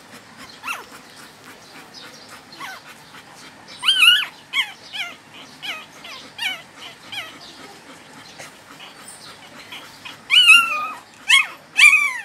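Newborn puppy crying: a string of short, high-pitched squeaks that slide down in pitch, louder about four seconds in and again near the end.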